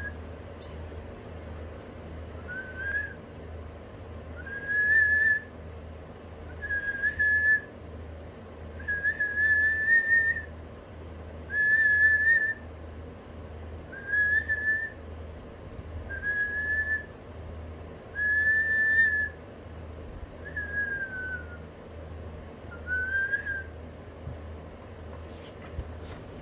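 Whistling: a string of about eleven short, high whistled notes about two seconds apart, each held for half a second to a second, most level or rising slightly and one sliding down, over a steady low hum.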